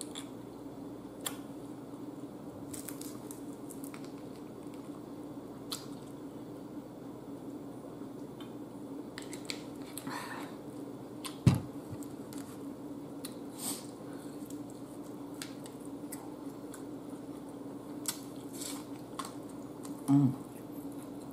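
Close-up eating sounds: chewing and small wet, sticky noises from mouth and fingers as chicken wings are eaten, with scattered light clicks over a steady low hum. A single loud thump comes about eleven and a half seconds in, and a brief low hum near the end.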